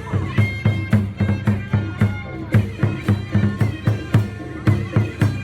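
Background music with a steady, quick drum beat and a melody over it.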